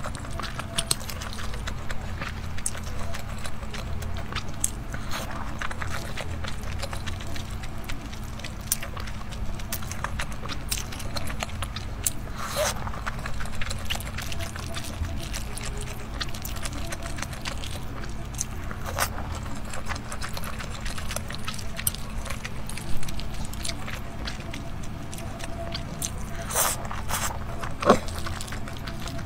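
Close-miked eating sounds: soft, wet chewing of wontons in chili oil, with scattered sharp clicks of wooden chopsticks against a glass plate, over a steady low hum.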